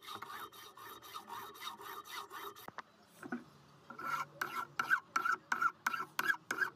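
Hand file stroked rapidly back and forth across a new bronze sleeve bushing, about five strokes a second. The strokes pause briefly about three seconds in, then resume harder with a ringing note.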